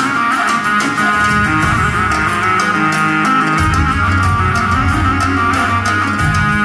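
Electronic arranger keyboard playing a melody in a guitar-like plucked voice over a moving bass line.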